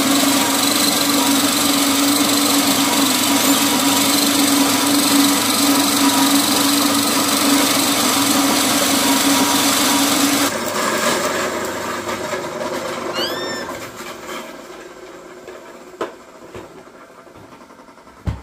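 Small electric corn grinding mill running loud and steady with a low hum, grinding dried corn kernels fed into its hopper. About ten seconds in the motor stops and the sound dies away over a few seconds, followed by a couple of light knocks.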